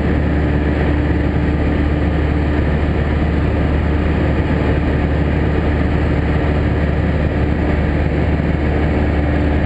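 Cessna 172's piston engine and propeller running in cruise, heard from inside the cabin as a steady, unbroken drone that is strongest at the low end.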